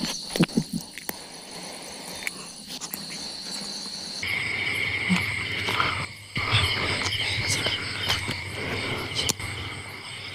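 Steady night-time insect chorus with a high, even trill that switches abruptly to a lower-pitched steady trill about four seconds in. A few scuffs and taps come near the start.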